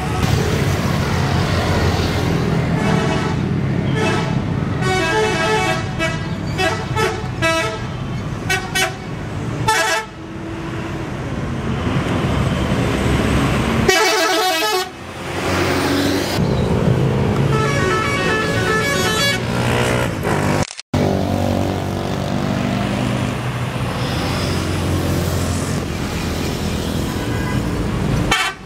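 Telolet horns on intercity buses: multi-tone air horns play quick melodic toots that step up and down in pitch, in several separate passages over running bus engines and traffic. The sound breaks off abruptly twice.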